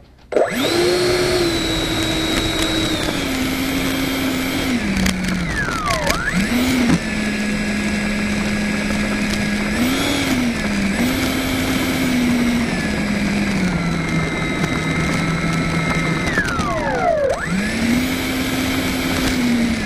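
70 mm electric ducted fan of a Freewing Yak RC jet whining as it taxis, starting up suddenly about half a second in. Its pitch steps up and down with the throttle and twice falls away in a downward sweep before spooling back up.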